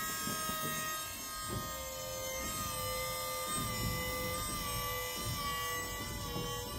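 Volvo electric power-steering pump (as fitted to the 2004–2013 S40, V50, C30 and C70) running on battery power: a steady electric motor whine made of a few tones whose pitch shifts slightly now and then.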